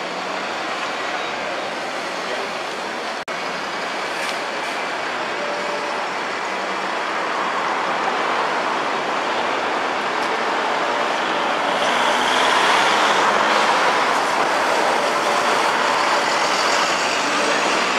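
Busy city-street traffic with buses running. A bus's engine and tyre noise grows louder through the second half as it passes close by.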